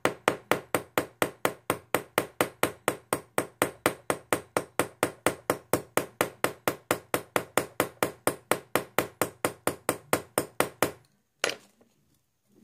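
Small end of a chasing hammer tapping steadily on a head-pin rivet over a steel bench block, a little over four quick taps a second, peening the cut end of the pin over to set the rivet. The tapping stops about eleven seconds in, followed by one last tap.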